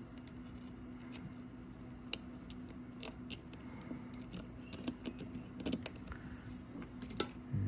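Small scattered clicks and taps of a finned metal heatsink being set onto an NVMe adapter card and pressed into place by hand, the sharpest click near the end. A steady low hum runs underneath.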